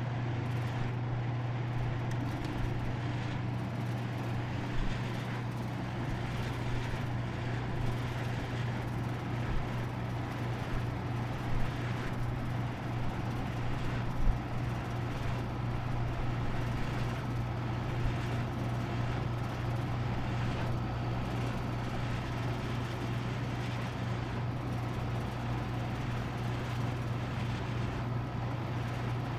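Air conditioner running steadily: a constant low hum under an even rush of air noise, with a few brief faint knocks.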